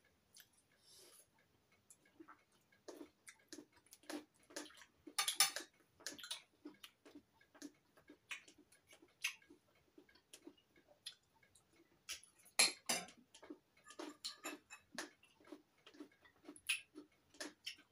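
Metal cutlery clicking and scraping on ceramic plates as knife, fork and spoon work through a meal: irregular light clicks, with louder clatters about five seconds in and again about twelve seconds in.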